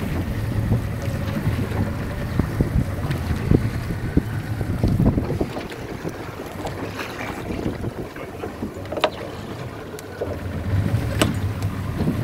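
Wind buffeting the microphone on a small boat in choppy water, over a low steady rumble, with two sharp ticks late on.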